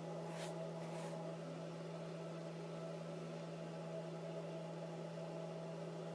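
Steady low hum under a faint hiss: the room tone of a quiet indoor recording, with two faint soft noises about half a second and a second in.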